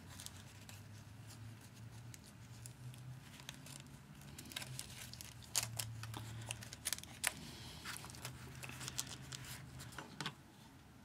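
Stiff parchment paper crinkling and rustling as folded tree panels are handled and slotted into a paper base, with many small sharp crackles and clicks, busiest and loudest about five to seven seconds in. A low steady hum runs underneath.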